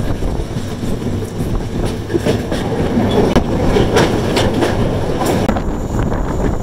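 Yal Devi Express passenger train running at speed, heard from a carriage door, its wheels clacking over the rails as it crosses a steel truss bridge. The clacks come several times over a steady running noise, and the high-pitched part of the noise thins out near the end as the train leaves the bridge.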